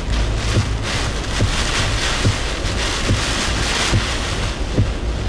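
Hurricane-force wind and heavy rain beating on a vehicle, heard from inside the cab: a loud steady rush with a deep rumble. A short low thump repeats a little more than once a second.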